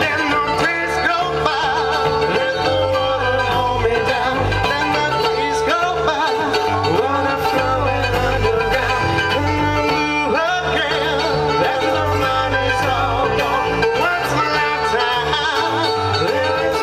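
Small acoustic band playing a bluegrass-style arrangement: mandolin and acoustic guitar strumming and picking over a bass guitar line, amplified through a PA.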